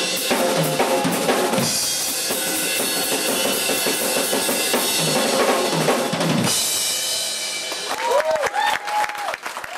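Drum solo on a Gretsch drum kit: fast bass drum, snare and rimshot hits under a wash of cymbals. The playing thins out after about six and a half seconds, and near the end a voice in the audience whoops.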